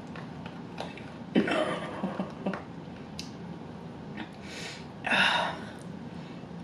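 A person eating close to the microphone: mouth noises and a few small clicks, with a noisy breath about five seconds in.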